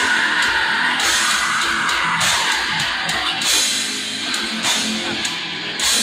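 A heavy metal band playing live: dense, distorted electric guitars over drums, with low kick-drum thumps and several cymbal crashes.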